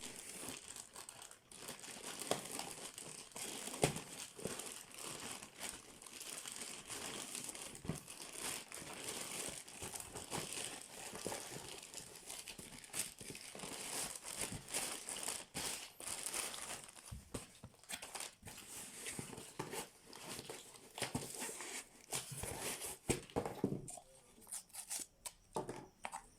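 Packaging crinkling and rustling as a watch is unboxed, with tearing and many small clicks and taps; it thins out near the end.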